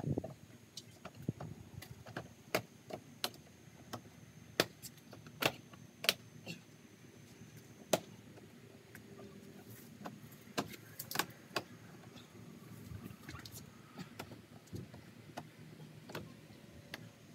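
Irregular sharp clicks and knocks of vinyl post-wrap panels being handled and fitted around a porch post.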